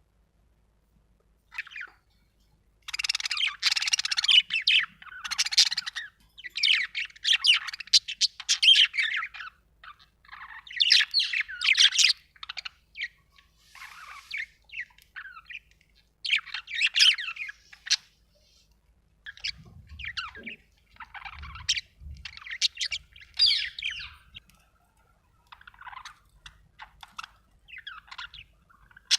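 Budgerigar chirping and chattering in rapid bouts of high, scratchy notes, separated by short pauses, with a few soft low knocks in the second half.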